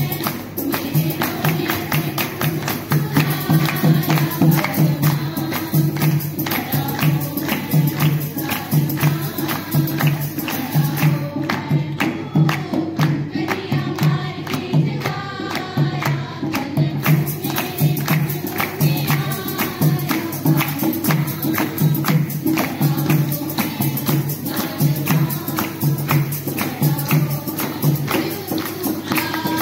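Women singing Punjabi boliyan together for a Gidha folk dance, kept in time by a steady beat of hand claps.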